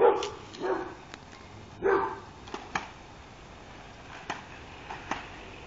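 A small dog barking, three short barks in the first two seconds. Scattered sharp clicks come from a RipStik caster board rolling on a concrete driveway.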